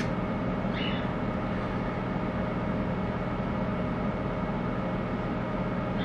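Delta AFB0612HC 60 mm fan cooling a Tektronix 2465 oscilloscope, running steadily at reduced speed through a 15-ohm series resistor: a smooth, even rush of air with a few faint steady tones. A click right at the start.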